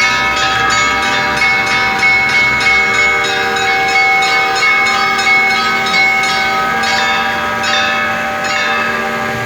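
Church bells ringing a peal (perezvon): several bells are struck in quick succession, and their tones ring on and overlap.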